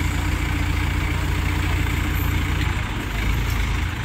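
Heavy vehicle's diesel engine idling steadily, with a low, even sound.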